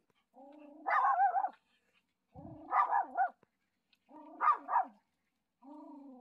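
Small dog growling and barking at a man approaching on the path: three times a held growl breaks into two or three sharp barks, the last growl still going at the end.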